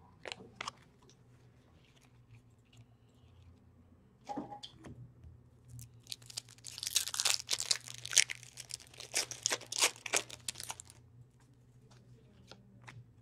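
A trading card pack's wrapper being torn open and crinkled, a dense run of crackling from about six to eleven seconds in. A few light clicks and rustles come before and after it.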